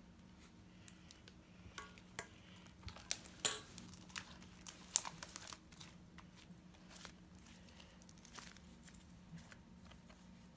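Sticky glitter slime being pulled off the hands and pressed into a plastic storage container: scattered small crackles and clicks, busiest in the middle.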